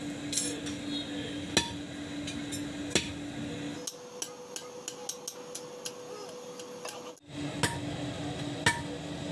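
Hand hammer striking red-hot iron on a steel rail anvil: a few sharp blows about a second apart, then lighter, quicker taps about three a second, over a steady low hum.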